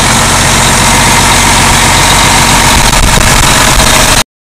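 Cummins M11-C300 inline-six turbodiesel pump engine running steadily and loudly, heard close up at the engine. The sound cuts off abruptly near the end.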